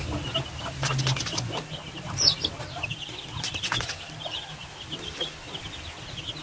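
A flock of chicks peeping: many short, high cheeps without a break, with one louder, falling cheep about two seconds in. A few light clicks or rustles come in two short clusters, around one second and around three and a half seconds.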